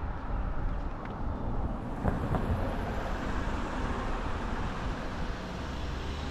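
Road traffic on a rain-wet street: a vehicle passing with its tyres hissing on the wet road, the hiss swelling about two seconds in, over a steady low rumble.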